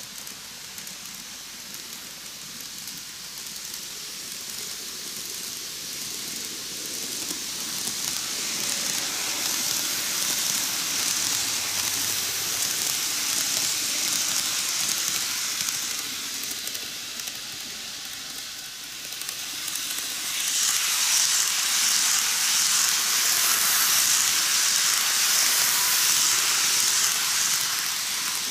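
N-gauge model trains running on the track: a steady hissing rush of small wheels and motors that swells as one train passes close, fades, then swells louder again as the next train comes near.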